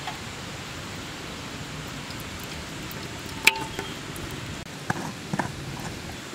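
Steady hissing of ghee heating in a large aluminium pan over a wood fire, with a few sharp clicks about halfway through and again near the end.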